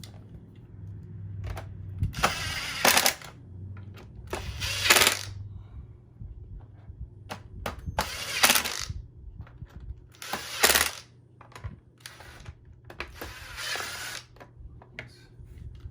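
Screws being driven back into a vacuum cleaner's plastic housing: five short noisy bursts, a few seconds apart, over a low steady hum.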